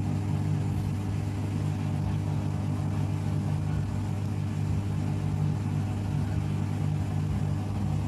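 Mademsa top-load washing machine running with a steady low hum in the last stage of its spin cycle, just before it shuts off.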